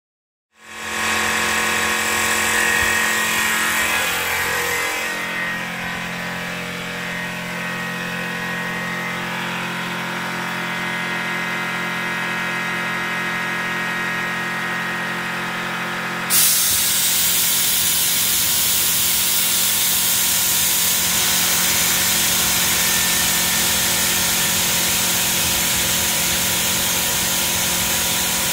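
Air compressor running while compressed air blows out through a blow nozzle, a steady hiss over the compressor's mechanical hum. About 16 seconds in the hiss suddenly gets louder and brighter and holds there.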